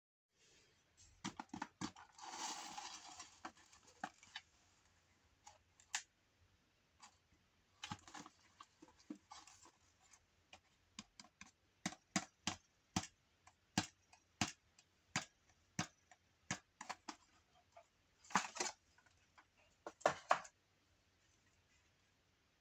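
A plastic pop-it toy and its cardboard box handled by hand: irregular light clicks, taps and scrapes of plastic and card, with brief rustling about two seconds in and twice more near the end as the toy comes out of the box.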